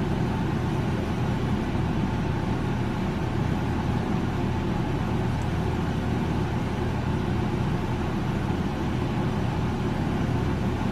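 Steady low background rumble with faint steady hum lines and no distinct events.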